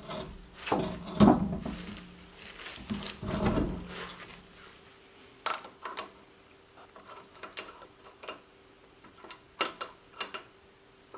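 Knocks and clinks of metal tools and parts being handled in a garage. They come thick in the first few seconds, then thin to a few isolated clicks.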